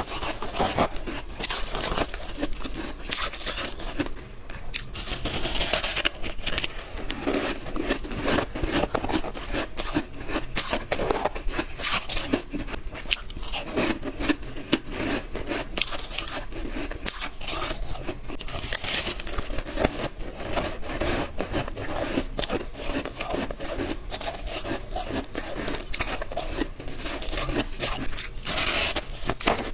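Close-up crunching of white ice being bitten and chewed: dense, irregular crackles and snaps, one bite after another.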